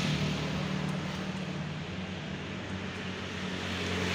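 Wind and road noise on a phone's microphone while riding a bicycle, with a low steady hum underneath and a swell of hiss near the end.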